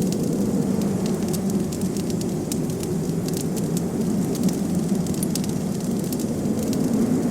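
Wood fire crackling with many small sharp pops, over a steady low rushing of blizzard wind.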